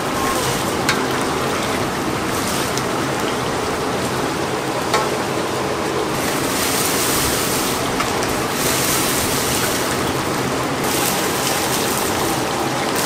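Chicken deep-frying in a cauldron of hot oil: a steady sizzle, with a few faint clicks, that grows brighter and louder twice in the second half.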